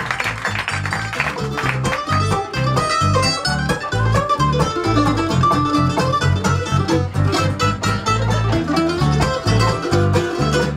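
Live bluegrass band of banjo, mandolin, acoustic guitar and bass guitar playing an up-tempo instrumental, with applause dying away in the first second or two.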